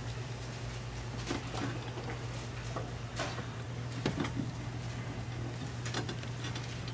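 Scattered soft rustles and light ticks of Bible pages being turned while people look up a passage, over a steady low electrical hum.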